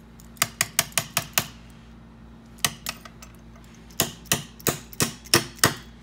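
Sharp metal-on-metal taps in two quick runs, about six in the first second and a half, one alone near the middle, then about seven more in under two seconds, as a press-fit pin is driven out of a Schlage deadbolt latch.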